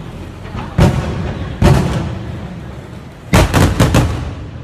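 Fireworks exploding overhead: one bang under a second in, another a little after, then a quick volley of several bangs about three seconds in, each followed by a short rumbling echo.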